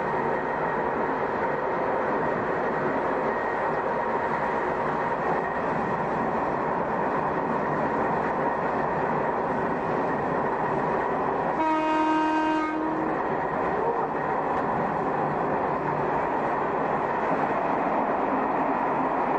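Shin-Keisei car 252, an old nose-suspended-motor electric train, running at about 90 km/h with a steady running rumble and a thin whine from its drive. Its horn sounds once for about a second, about twelve seconds in, as a warning on nearing a tunnel.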